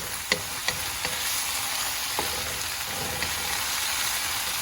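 Chicken and vegetables stir-frying in oil in a hot pan: a steady sizzle, with a few sharp clicks of the stirring utensil against the pan in the first couple of seconds.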